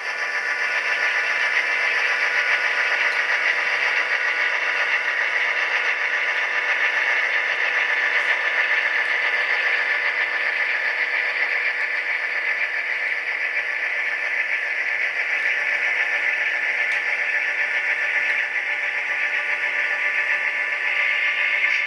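Simulated EMD diesel engine sound from an HO scale SD9's Tsunami sound decoder, played through the locomotive's tiny speaker: a steady engine drone with a tinny, thin character and no deep bass.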